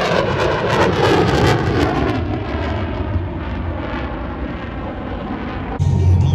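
Aircraft flying past, its engine noise falling in pitch and fading as it goes by. Just before the end the sound cuts abruptly to a different steady low hum.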